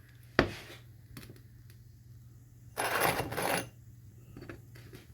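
Small metal objects being handled: a sharp click, then a brief metallic rattle about three seconds in, over a steady low hum.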